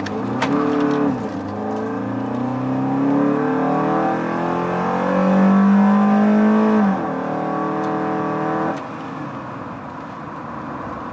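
Fiat 500 engine with a custom intake and a Magnaflow exhaust, heard from inside the cabin, accelerating with a growl. The revs climb, fall back at a gear change about a second in, then climb again. The engine is loudest around five to seven seconds in, then eases off to a quieter cruise near the end.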